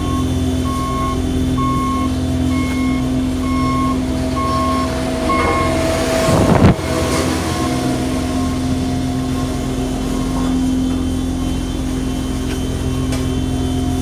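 Reversing alarm on paving machinery beeping about once a second over the steady diesel running of the road rollers and paver; the beeping stops about five seconds in. A brief loud whoosh comes about halfway through.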